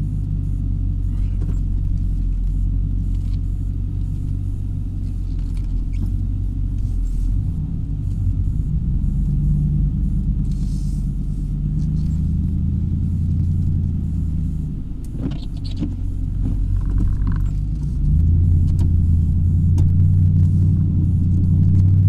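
Snowplow truck's engine running under plowing work, heard from inside the cab: a low steady rumble that eases about fifteen seconds in and comes back louder about eighteen seconds in.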